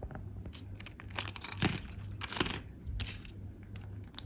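Light clicks and clatter of small plastic Beyblade parts being handled as a gear is fitted onto a Beyblade, with a couple of louder clicks about one and a half and two and a half seconds in.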